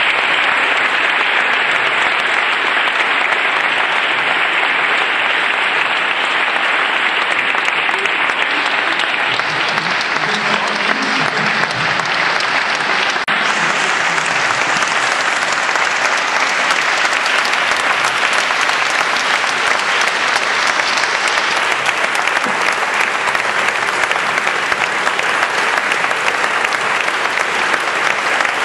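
A large audience applauding, long and steady.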